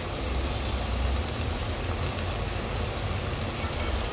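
Chicken curry pieces sizzling in hot spiced oil in a metal pan, dry-frying as a bhuna with the oil risen to the top: a steady hiss with a low rumble underneath.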